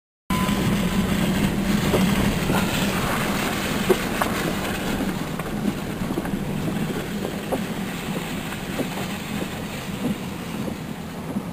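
Steady low mechanical rumble of a running vehicle, with scattered light clicks and ticks, starting abruptly just after a moment of silence.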